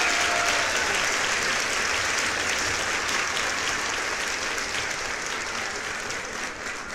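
Crowd applauding, a dense patter of clapping that fades out gradually.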